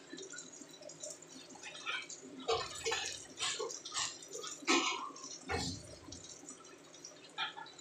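King mackerel steak frying in oil in a pan: hot oil popping and spitting in irregular crackles. Two duller knocks come about two and a half and five and a half seconds in.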